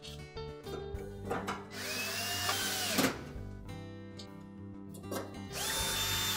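Cordless drill/driver driving sheet-metal mounting screws into a range's back panel: two short runs, each climbing in pitch as the motor spins up. Background music plays throughout.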